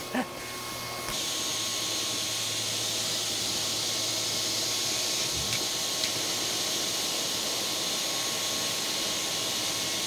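Small shop vacuum running steadily, its exhaust blowing air through a hose to keep a tarp air bag inflated under a car. A steady hiss that gets louder about a second in.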